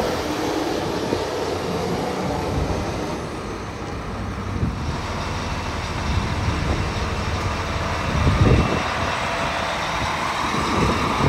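Rokbak articulated dump truck driving past close by on concrete, its diesel engine running under a steady low rumble. It gets briefly louder about eight and a half seconds in, and a higher whine comes in near the end.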